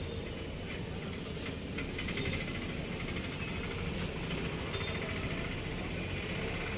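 Auto rickshaw engine running steadily, heard from inside the auto rickshaw, amid the rumble of slow street traffic.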